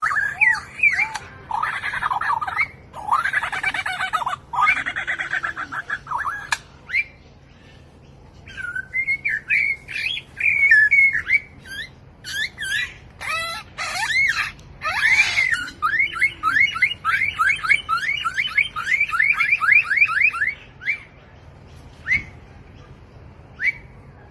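A mimicking pet bird calling: a string of varied squawks and whistled phrases with short pauses, then a fast run of short chirping notes, about five a second, from about 15 seconds in.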